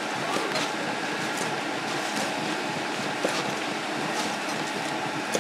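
Steady background noise with a few light clicks and knocks scattered through it.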